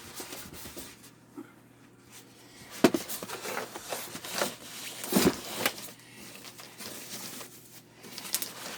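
Cardboard box and packing material being opened and handled while a heater is unboxed: rustling and crinkling, with two louder knocks about three and five seconds in.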